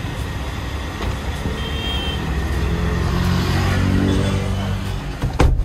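A car's engine and road noise heard from inside a moving car, the low rumble rising in pitch and getting louder as it picks up speed. A short high beep comes about two seconds in, and a sharp thump near the end is the loudest sound.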